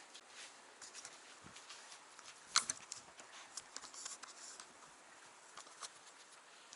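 Faint rustling and light scattered clicks, with one sharper click about two and a half seconds in: a poodle puppy working a fabric carrot-farm snuffle toy.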